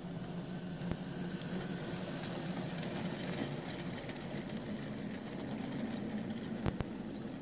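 Hornby OO gauge Class Q1 model locomotive running past: a steady electric-motor whine with the low rumble of wheels on the track, loudest as it goes by about one to three seconds in. Two sharp clicks, one about a second in and one near the end, as the wheels run over the track.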